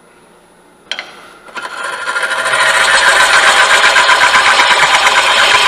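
A hollowing tool cutting inside a wooden vessel spinning on a wood lathe: a loud, rough, chattering scrape of steel on wood. It starts about a second and a half in, builds over about a second and then holds steady. A click comes just before it, near one second.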